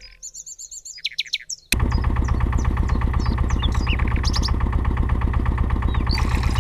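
Birds chirping, then about two seconds in a small engine cuts in suddenly at full level and runs steadily with a fast, even chugging beat while the birds keep chirping.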